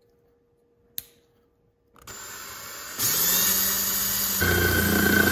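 A single click about a second in, then a cordless drill starts about two seconds in, spinning up and getting louder. From about four seconds the drill bit grinds through the plastic base of a spotlight.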